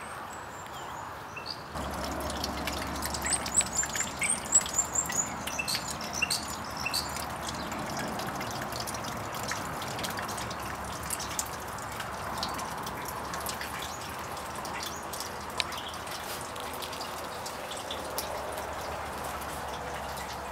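Rain dripping and pattering, with many small drops ticking throughout. A bird sings a quick run of high chirping notes a few seconds in.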